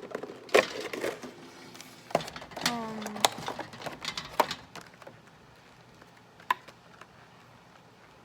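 Clicks, knocks and light rattles of a Pokémon card tin and its contents being opened and handled, busy for the first five seconds, then only a single sharp click.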